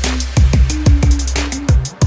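Electronic background music with a fast drum beat: punchy kicks and quick hi-hats over a steady deep bass, dropping out briefly near the end.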